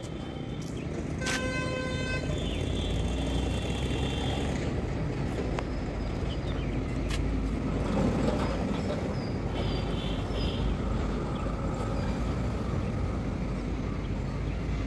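Steady rumble of road traffic, with a vehicle horn honking once, about a second long, just over a second in.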